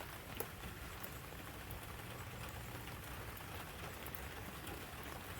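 Steady rain falling, with scattered ticks of drops striking a surface and one sharper tick about half a second in.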